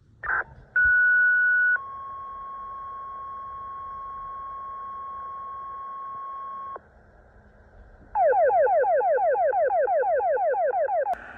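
Fire dispatch tones over a scanner radio: a short chirp, then a two-tone page, a higher tone for about a second followed by a lower tone held about five seconds. After a short pause comes a rapid falling-sweep alert tone, about seven sweeps a second for about three seconds, ending in a radio click.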